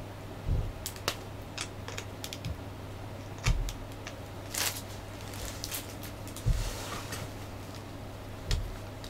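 Hard plastic parts of a model kit figure clicking and tapping as they are handled and pressed together, with a few dull thumps and a brief rustle, over a low steady hum.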